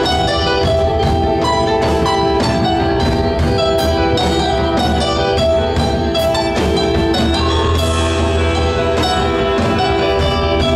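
Live progressive rock band playing an instrumental passage: Yamaha keyboard, bass guitar, electric guitar and drum kit, with sustained bell-like keyboard tones over a steady bass and evenly spaced cymbal hits.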